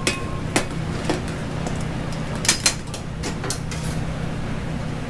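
Metal sauté pan being tossed and shaken on a gas range, knocking against the stove grate near the start and several times around the middle, over a steady low hum.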